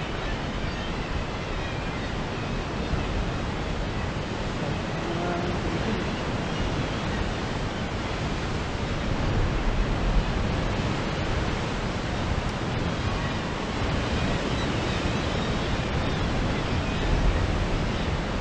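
Wind buffeting the microphone over the steady wash of sea surf breaking against rocks below a cliff, with stronger gusts about ten seconds in and again near the end.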